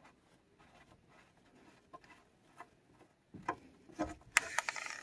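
Hands fitting a new oil drain plug into the oil pan of a BMW N20 engine: mostly quiet, then a couple of knocks and, near the end, a short burst of clicking and scraping.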